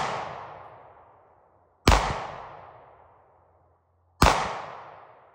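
Pistol shots fired at a slow, steady pace, about one every two seconds: two full shots, each followed by a long echo fading over a second or more, with the echo of an earlier shot dying away at the start.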